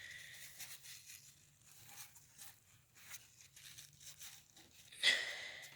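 Faint rustling and light scraping of hands working dirt out of the window air conditioner's base pan near the drain hole, with a louder swish about five seconds in.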